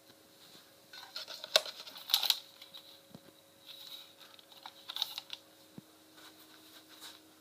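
Irregular clicks and rattles in quick clusters, loudest about one and a half to two and a half seconds in.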